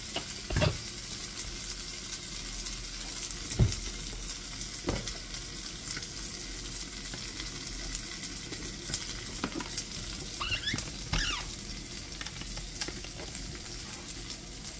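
Onions frying in a pot: a steady sizzle full of fine crackles. A few dull knocks break through it, the loudest about a quarter of the way in, and there is a short squeak about two-thirds through.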